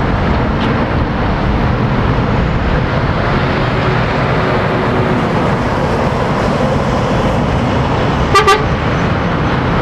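Articulated lorries driving round a roundabout, engine and tyre noise running steadily as one passes close. About eight seconds in, an approaching lorry's horn gives two quick toots.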